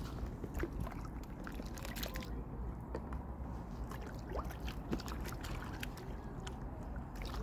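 Shallow lake water splashing and trickling as a plastic tray of small fish is tipped and dipped into it at the shoreline, over a steady low rumble with scattered small clicks.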